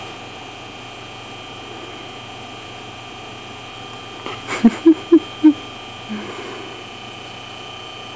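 Steady electric hum of a baby swing's motor, with a quick run of four short voiced sounds about halfway through.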